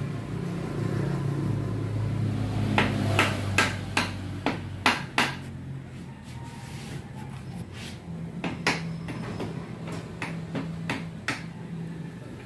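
A run of sharp knocks over a steady low hum: about eight strikes in quick succession a few seconds in, then scattered single knocks later.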